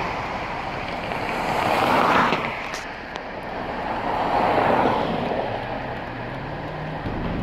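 Road traffic noise: passing vehicles swell and fade, the loudest passes coming about two seconds and about five seconds in, with a faint low engine hum near the end.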